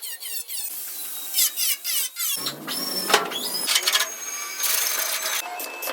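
A power tool whining, its pitch sliding up and down, with irregular short clicks and scrapes.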